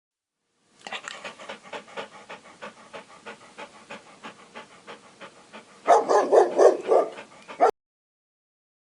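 Dog panting in quick, even breaths, about four a second. The panting grows much louder near the end, then cuts off suddenly.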